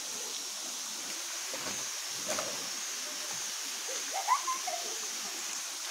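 Stream water running and trickling over rocks in a steady rush, with a short faint voice about four seconds in.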